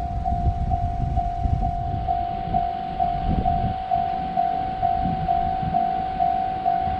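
Japanese railroad crossing warning bell ringing steadily, about two strokes a second, over a low, uneven rumble.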